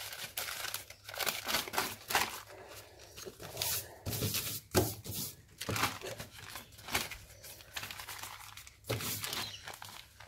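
A crumpled sheet crinkling and rustling in short, irregular bursts as it is dabbed and pressed onto wet spray paint, lifting paint off to leave a crinkled texture.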